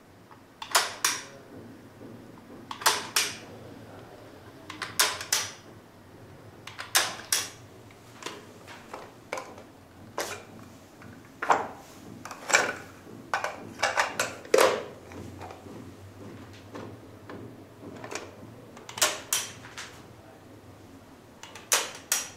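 Plastic clicks from a toy mini projector's push-forward advance mechanism, a quick double click every couple of seconds as each next picture is clicked into place. In the middle comes a busier run of plastic clicks and clacks as the story disc is swapped, then the double clicks start again near the end.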